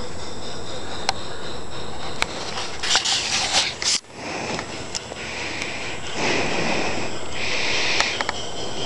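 Large-scale Bachmann model steam locomotive running along garden railway track, under a steady rushing noise. From about halfway through, repeated hissing bursts about a second long each.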